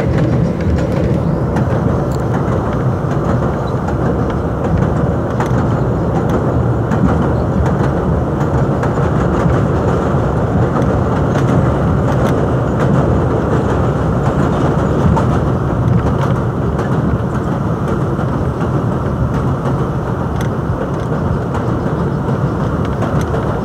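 New York City Transit R62A subway car running at speed on an elevated line, a steady, loud rumble of wheels on rails heard from inside the front car.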